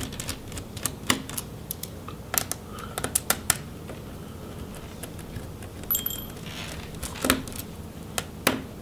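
Screwdriver loosening the hinge screws of a Lenovo ThinkPad T470 laptop: irregular sharp clicks and ticks of the driver working the screws and bumping the hinge, with a brief ringing tone about six seconds in.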